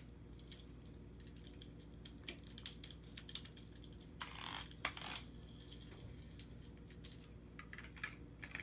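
Faint, scattered small clicks and taps, with short rustles about four and five seconds in: small plastic parts being handled as a battery cover is screwed back onto a motorized Thomas toy train.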